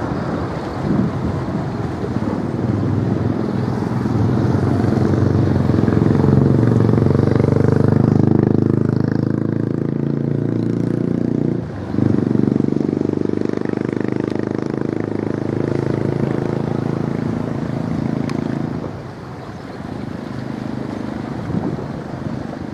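An engine running steadily with a low hum, cutting out for a moment about halfway through and dropping in level near the end.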